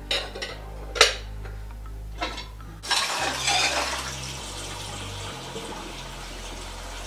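Dishes and cutlery clinking at a kitchen sink, three sharp clinks with the loudest about a second in, then running tap water from about three seconds in.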